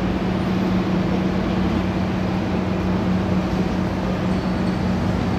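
Steady mechanical drone: a constant low hum over an even rushing noise.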